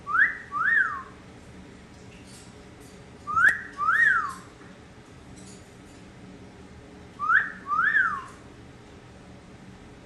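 Amazon parrot whistling a two-note wolf whistle three times, about three and a half seconds apart: the first note sweeps up, the second rises and falls.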